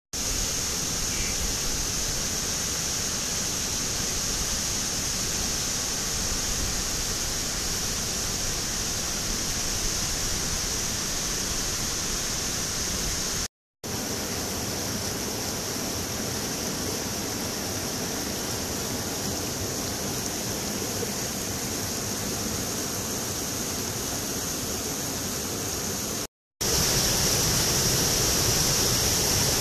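Steady rush of falling and rushing water: the Nardis Falls cascading down rock, then a rocky mountain stream running over boulders. Two short breaks to silence, about halfway in and near the end; after the second the rush is a little louder.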